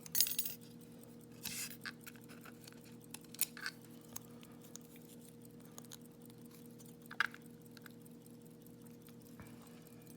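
Scattered small metal clicks and clinks from handling an Abus 72/40 brass padlock and its parts while it is being shimmed and taken apart, loudest right at the start and again a few times later, over a faint steady hum.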